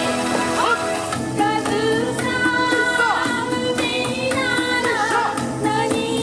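Music with a singing voice: a sung melody of held notes that bend and slide in pitch, over instrumental accompaniment.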